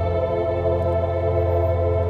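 Ambient background music: held, sustained chords over a steady low drone.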